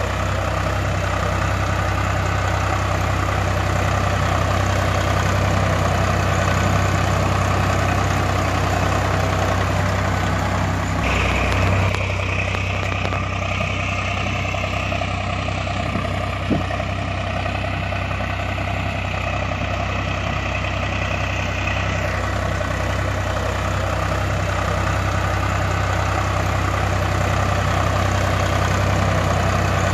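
Tractor engine idling steadily with a low, regular throb; the tone shifts slightly about 11 seconds in and shifts back about 22 seconds in.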